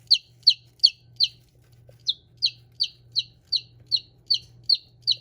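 A baby chick peeping loudly and insistently, about three short high peeps a second, each falling in pitch, with a brief pause about a second and a half in.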